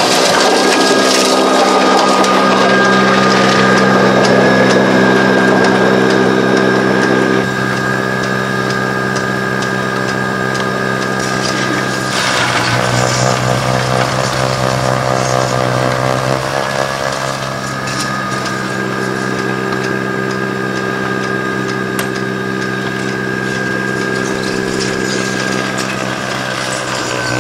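Greenworks Pro 80V two-stage electric snow blower running and throwing snow, its electric motor giving a steady whine. The tone shifts a few times, dropping about a third of the way in and changing again around the middle.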